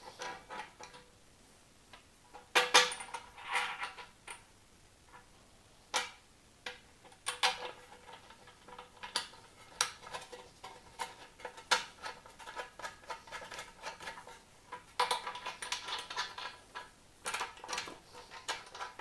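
Sharp metal clicks and clinks of screws and spacers being handled and hand-threaded into the handle fittings of a barbecue lid, some ringing briefly. They come in irregular bursts, busiest about two and a half to four seconds in and again around fifteen to seventeen seconds.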